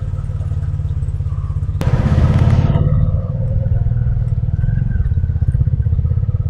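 Motorcycle engine running at low riding speed, a steady, rapid low thudding, heard from a helmet-mounted camera. About two seconds in, a sudden hiss starts and dies away after about a second.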